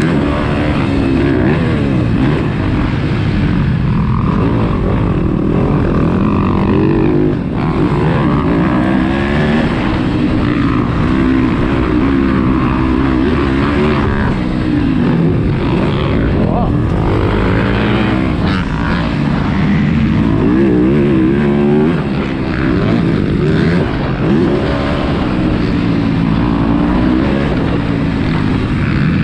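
2023 Yamaha YZ250F's four-stroke single-cylinder engine being ridden hard, its pitch climbing under throttle and dropping back over and over, every few seconds, as the bike goes through the jumps and corners of a motocross track.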